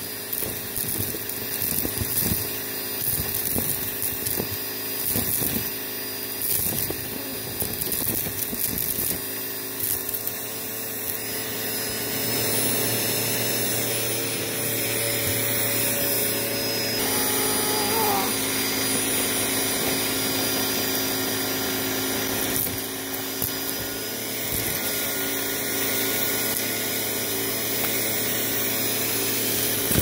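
Vacuum cleaner running steadily through a hose nozzle, with many sharp clicks and rattles of debris being sucked up, mostly in the first ten seconds or so.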